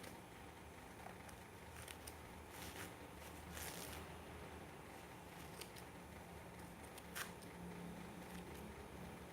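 Scissors cutting leftover tissue paper away from a sponge: a few faint, short snips and rustles, the longest about three and a half seconds in and a sharper one about seven seconds in.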